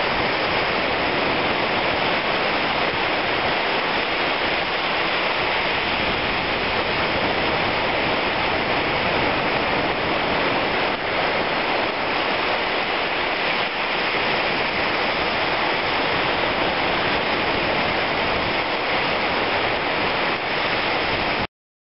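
Shallow surf washing over wet sand at the water's edge, a steady rush of water that cuts off suddenly near the end.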